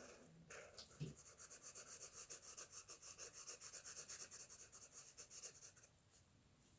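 Faint, quick back-and-forth scratching strokes of a drawing tool on its drawing surface, about five a second, as in shading or hatching. A small knock starts the run, and the strokes stop near the end.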